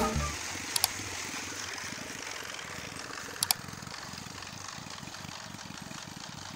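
Small engine of a portable concrete mixer running steadily, with a fast, even pulse, while the drum turns a batch of concrete. Two sharp clicks cut in, about a second in and again past three seconds.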